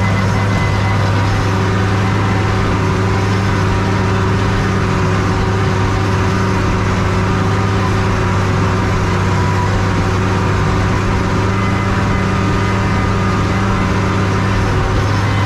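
Fiatagri 100-90 tractor's six-cylinder diesel engine running at steady revs under load, heard from inside the cab, as it tows and drives a manure spreader.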